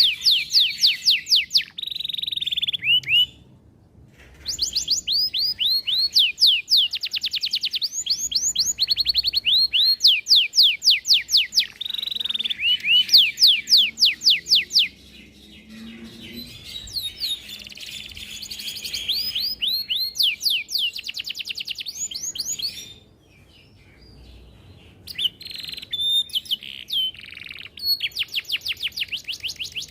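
Domestic canary singing a long song of rapid trills and rolls, fast repeated notes in phrases of a few seconds with brief pauses between them.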